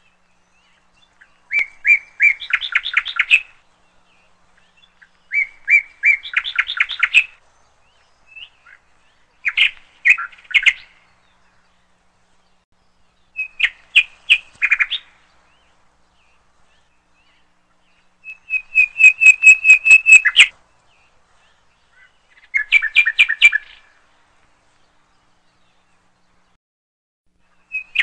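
A songbird singing: six short phrases of quick, high notes, each lasting a second or two, a few seconds apart.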